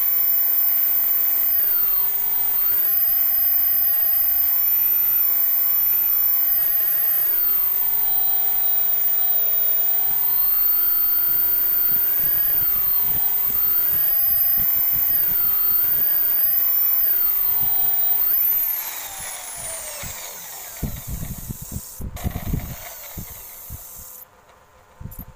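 Electric power tool motor running, its pitch repeatedly sagging and recovering as it is loaded. It is switched off about eighteen seconds in and winds down, and a few knocks follow.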